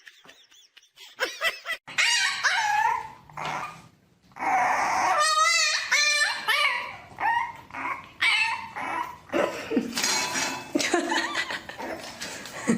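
A pet animal giving a string of high, wavering cries and yelps, starting about a second in, one cry near the middle trembling strongly in pitch.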